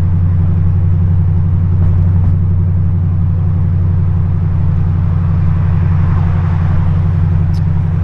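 2008 Shelby GT500's supercharged 5.4-litre V8 running steadily, a low, even drone that holds the same level throughout.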